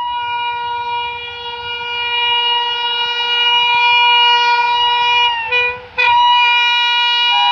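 Indian Railways electric locomotive's horn sounding a long, steady blast as the train approaches. About five and a half seconds in, the tone bends down and breaks off briefly, then sounds again. Near the end a second, lower tone joins it.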